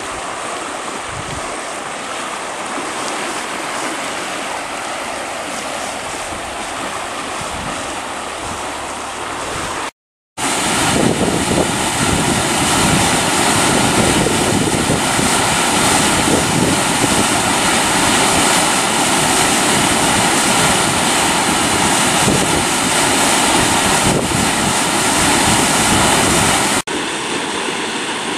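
Flash-flood torrent of muddy water rushing down a canyon creek channel: a loud, steady rush. It breaks off for a moment about ten seconds in and comes back louder, then drops to a lower level near the end.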